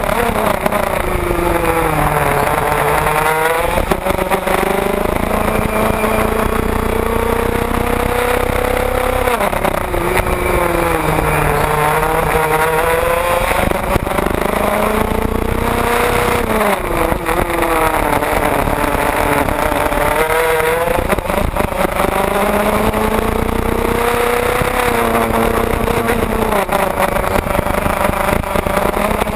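IAME 125cc two-stroke kart engine at race pace, heard from on board. Its pitch falls as the kart brakes into corners and climbs again as it accelerates out, about six times.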